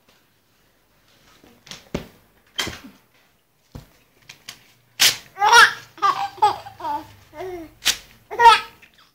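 A baby laughing and babbling in a string of short, high-pitched, breathy bursts from about five seconds in, after a few soft clicks or smacks near the start.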